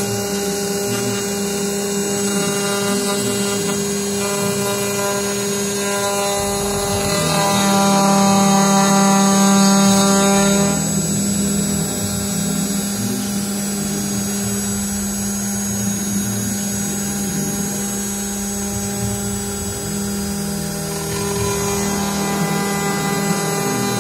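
CNC router spindle running a wide milling cutter across an aluminium plate: a steady machining whine with cutting noise. It swells louder from about seven seconds in and drops back after about eleven seconds, then picks up again near the end.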